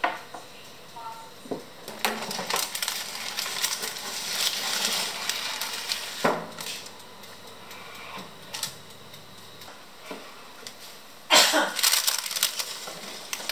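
Kitchen handling noises: baking paper rustling and crinkling, with scattered metal clicks and clinks. Near the end comes a louder burst of metallic rattling as a toaster-oven wire rack is slid out.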